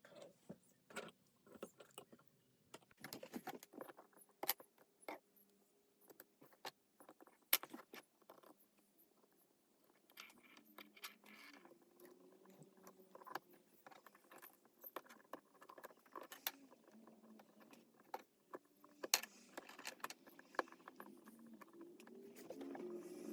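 Small metal tools and phone parts clicking and tapping against each other and the work surface while a Samsung Galaxy S8 is reassembled. The clicks are sharp, scattered and irregular, with two louder ones near the middle and late on.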